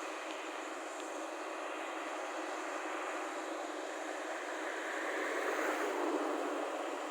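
Rice combine harvester running steadily. It grows louder for a moment around five to six seconds in.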